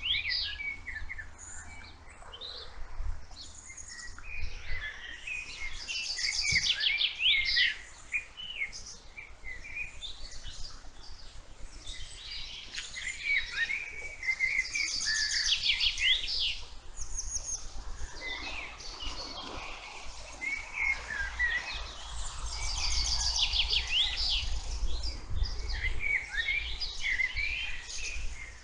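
Several songbirds singing at once in a meadow: many overlapping short chirps and calls, with quick high trills repeating every few seconds. A faint low rumble runs underneath.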